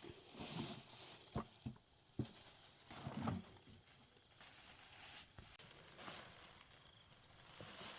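A few light knocks and clicks, then a short scraping rustle a little after three seconds, over a steady high insect chirr.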